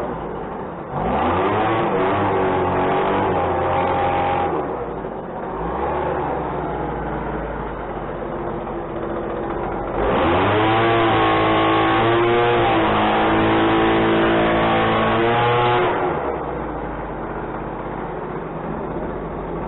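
Engine running after a repair: revved up about a second in and let back to idle, then revved again and held high for several seconds before dropping back to idle.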